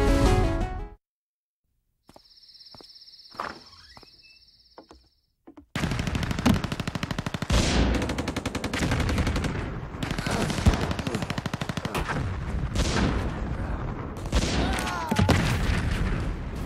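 A brief jingle ends, then a quiet stretch with a faint steady high whine and a few clicks. About six seconds in, loud rapid machine-gun fire and blasts from a movie soundtrack break in and keep going.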